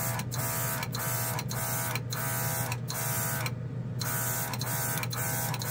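Battery-powered mini airbrush compressor running with a steady whirring hum, while the Gaahleri airbrush hisses as it sprays primer. The spray comes in short pulses, broken by brief gaps as the trigger is let off, about every half second to a second.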